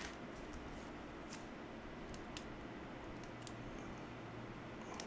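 Faint handling sounds of a shrink-wrapped vinyl LP being slit open with a small cutter: a few sharp ticks about a second apart over a low hiss.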